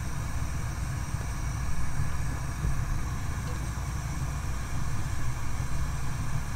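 Gas stove burner flame burning on high with a steady low rumble, used to sear raw horse meat held over it.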